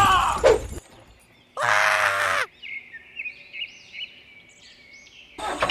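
A brief loud buzzing tone about two seconds in, followed by a few seconds of faint, repeated bird chirps.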